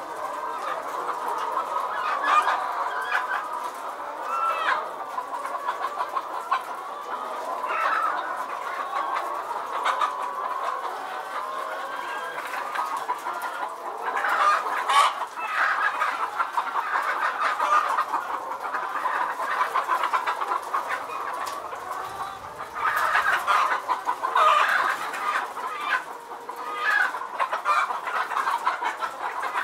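A large flock of caged laying hens clucking continuously, many birds calling over one another, with louder calls about halfway through and again near the end.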